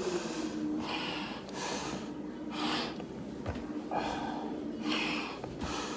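Quick, heavy breathing through a firefighter's SCBA face mask and regulator, roughly one noisy breath a second with a short pause about halfway, breathing hard from the exertion of a long stair climb.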